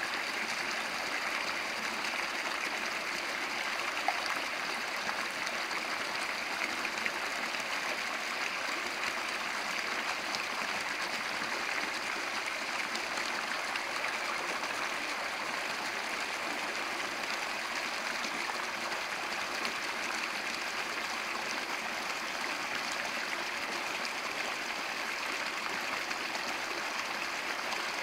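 Small stream pouring over a low drop into a pool, a steady rush and splash of running water.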